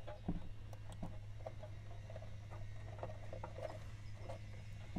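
Small irregular clicks and scratching of wire leads being handled, bent and pressed onto the metal solder lugs of a terminal strip inside an amp chassis, over a steady low hum.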